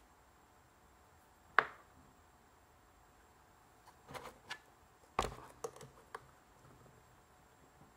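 Makeup items handled on a table: a sharp click about a second and a half in, then a run of small clicks and taps and a knock about four to six seconds in.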